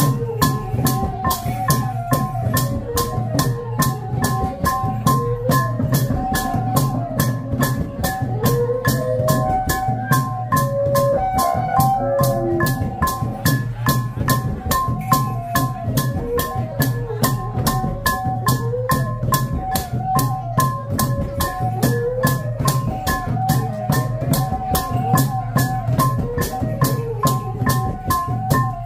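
Khmer chhay-yam music: drums and cymbals keep a fast, steady beat of about three to four strokes a second under a wavering melody.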